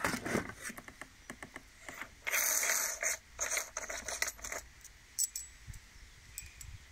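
Handling the angle grinder in its cardboard box: scraping and rustling, loudest about two seconds in, among small metallic clicks and clinks as the steel quick-clamp flange nut is taken off the spindle.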